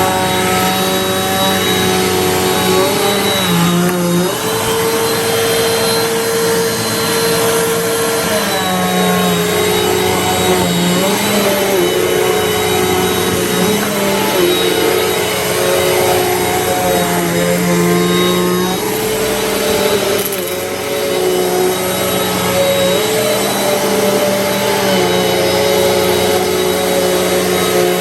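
Eureka AirSpeed compact upright bagless vacuum cleaner running on carpet. Its motor whine is steady, with the pitch shifting up and down several times.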